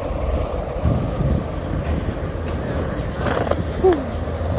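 Steady low rumble of skate wheels rolling over street paving. A brief rushing noise comes about three seconds in, then a short falling squeak.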